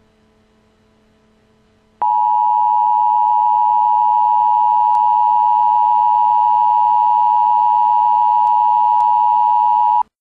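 Emergency Alert System attention signal: a loud, steady electronic alert tone that starts abruptly about two seconds in, holds unchanged for about eight seconds and cuts off sharply, announcing the emergency message to follow. Only a faint hum comes before it.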